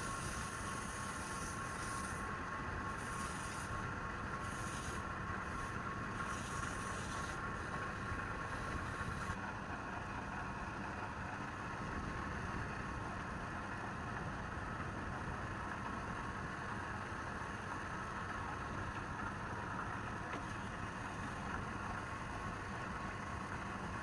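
Steady machine-like hum with a few faint steady tones, with short bursts of high hiss every second or so during the first nine seconds.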